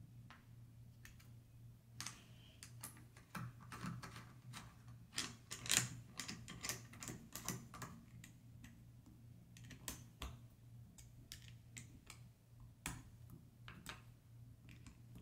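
Irregular small metallic clicks and taps of a 5/32 Allen key working in the stock screws as they are retightened, with one louder click a little before six seconds in. A faint steady hum runs underneath.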